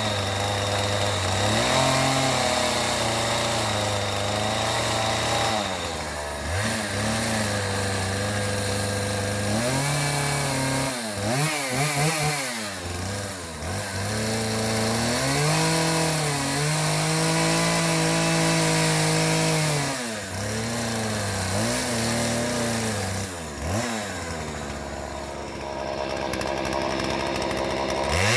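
A small engine or power-tool motor running hard, its pitch dipping and rising again and again as the load changes.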